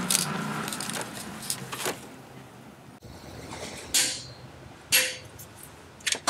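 Socket wrench working on a car's oil filter housing cap and oil pan drain plug: scattered metal clicks and clunks, with two sharper knocks about four and five seconds in and a quick run of clicks near the end, over a low steady hum at the start.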